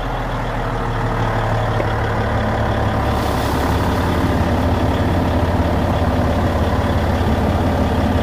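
Caterpillar D9T dozer's C18 diesel engine idling steadily.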